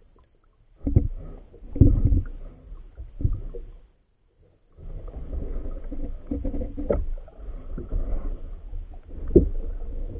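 Muffled underwater knocking and rumbling from a handheld phone camera moving through water, with knocks against its housing. There are two stretches: a few heavy thumps in the first few seconds, then after a short pause a longer rumbling run with sharp knocks about two-thirds of the way in and near the end.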